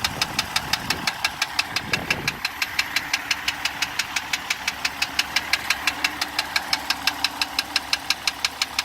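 2015 Jeep Grand Cherokee's 3.0-litre V6 diesel engine running with a steady, sharp rhythmic knock, about five or six knocks a second.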